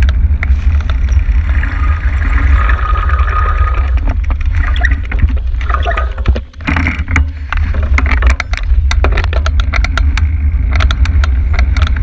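Wind buffeting a bicycle-mounted camera's microphone while riding in traffic, a continuous rumble with the noise of cars alongside. Sharp clicks and rattles from the bike run through it, thickest near the end.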